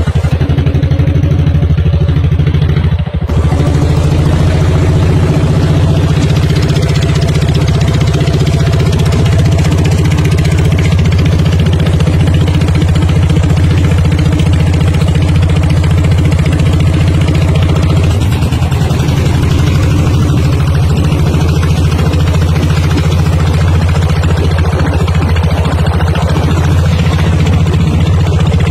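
Fishing boat's engine running steadily as the boat moves through the water, loud and even, with a brief dip about three seconds in.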